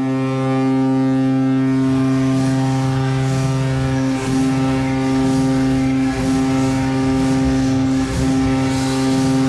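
Vegas Golden Knights' hockey goal horn sounding a deep, steady tone, broken briefly about 4, 6 and 8 seconds in.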